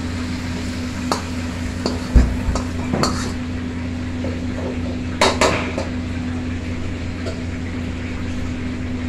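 Metal ladle scraping and clanking against a wok and a stainless steel tray as food is scooped out and tipped in, with scattered sharp clanks, the loudest about two and five seconds in.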